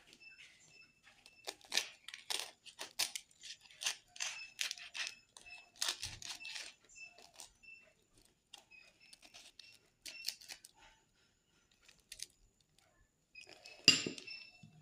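A knife cutting through a crispy deep-fried flour vada, its crust crackling and crunching in a quick run of small clicks that thin out after about seven seconds. Near the end there is one louder crunch as the vada is broken open.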